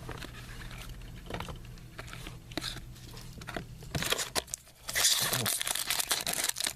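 A trading-card pack's wrapper being torn open and crinkled. A few faint clicks come first, then crackling starts about four seconds in and gets loud for the last couple of seconds.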